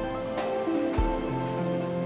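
Background music: held instrumental notes over a low drum beat, with one drum hit about halfway through.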